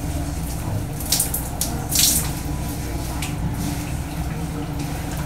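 Water running steadily in a bathroom, with a few short wet rubs as hands work a treatment product through soaked hair, two of them about one and two seconds in.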